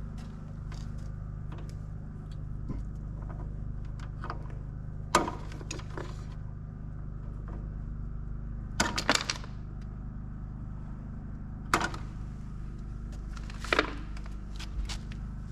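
Sharp clicks and knocks of hand work, a few isolated and one quick cluster about nine seconds in, over a steady low hum.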